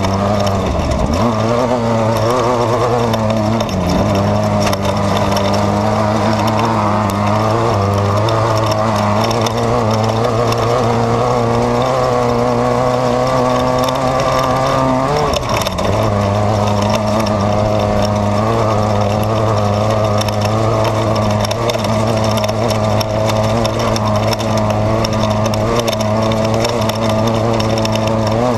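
Off-road desert race car's engine heard from inside the car, its pitch rising and falling with the throttle. Frequent knocks and rattles come from the chassis over rough ground, and the engine note dips briefly about halfway through.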